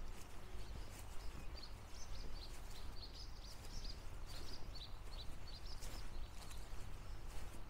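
Small songbird singing a long run of short, quick, high notes, over a steady low background rumble with a few light clicks.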